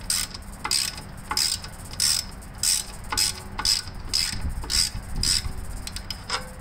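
Socket ratchet clicking in short runs on each back-swing, about ten strokes roughly two-thirds of a second apart, as a 7/16 socket works a fuel fitting loose from the bottom of a gas tank.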